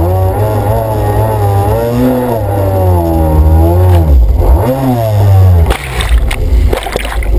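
Jet ski engine revving, its pitch swinging up and down as the throttle changes through hard turns. About six seconds in the engine note drops away into splashing and scattered knocks as the rider crashes into the water.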